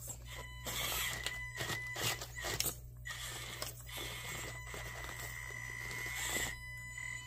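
Micro RC crawler's 050 electric motor and transmission whining steadily at a high pitch as it climbs, with irregular scrapes and knocks from the tyres and chassis on rock.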